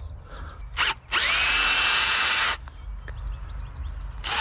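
Power drill with a 1/4-inch (6 mm) bit enlarging a pilot hole in a motorcycle handguard: a short blip of the trigger, then the drill runs for about a second and a half, its motor whine rising as it spins up and then holding steady, and stops. Another short blip comes at the very end.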